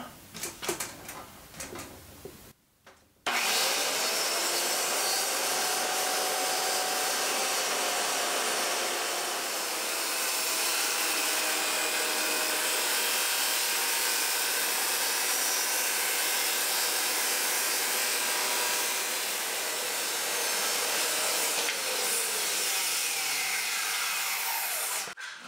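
Corded circular saw cutting through two clamped plywood panels at once in one long, steady pass along a guide. A few light clicks come first; the saw starts suddenly about three seconds in and stops near the end.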